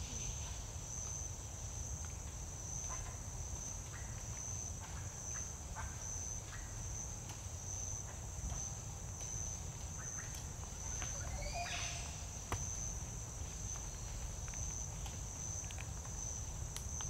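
Tropical rainforest ambience: a continuous high-pitched insect chorus pulsing steadily, over a low rumble, with scattered short chirps and one longer sweeping call about eleven seconds in.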